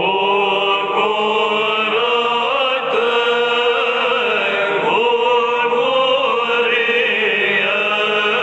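Romanian Orthodox chant of the hymn to the Holy Cross, voices singing the line 'Bucură-te, bucurie' in long held notes that move slowly from pitch to pitch.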